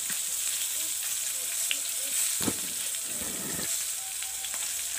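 Oil and chili sauce sizzling steadily in an aluminium wok as a whole spotted dove fries over a gas burner, with a soft knock about halfway through.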